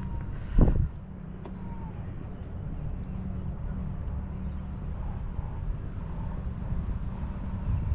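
Steady low outdoor rumble, with one loud dull thump about half a second in.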